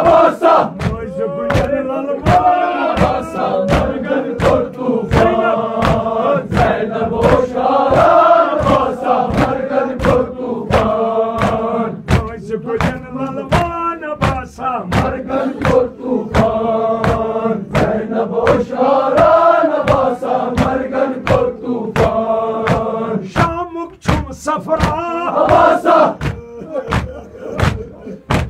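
A group of voices chanting a Kashmiri marsiya, a mourning elegy, in unison, over a steady beat of sharp slaps at about two a second.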